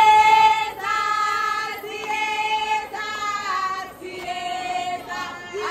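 Women's voices singing a celebratory song, with high notes held for about a second at a time.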